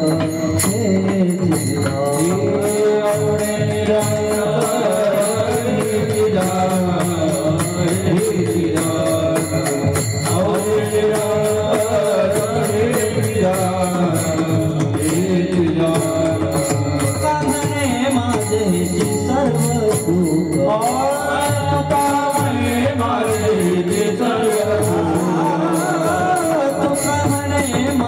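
Devotional kirtan singing of a panchapadi: a voice sings a melody over accompaniment, with jingling hand percussion keeping a steady beat.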